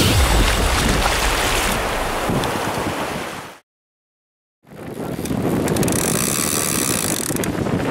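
Wind buffeting the microphone over surf breaking on a beach, broken by about a second of dead silence a little past the middle.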